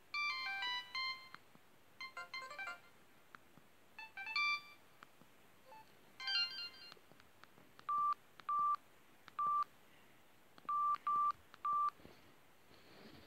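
Samsung SGH-E570 mobile phone's speaker playing short synthesized alert tones: four brief electronic jingles in the first half, then six separate single-pitch beeps at uneven intervals.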